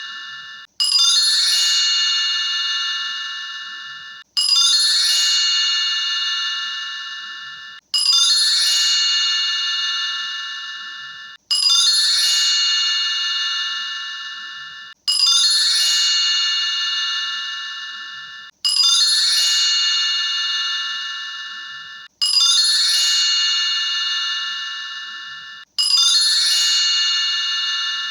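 A bright, bell-like chime of several ringing tones, struck about every three and a half seconds. Each strike rings out and fades almost away before the next, eight times alike, as a looped chime sound.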